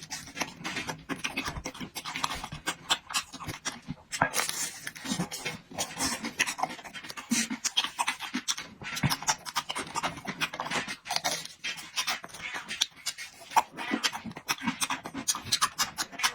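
A person chewing and lip-smacking while eating, close to the microphone: a dense, irregular run of quick clicks and smacks.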